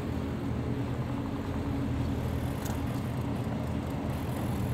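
A moored ship's engine running with a steady low hum.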